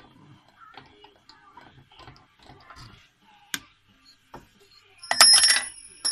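Light clicks and handling at a drill press chuck as a steel twist drill bit is taken out. About five seconds in comes a loud ringing metallic clink, with a second shorter clink near the end.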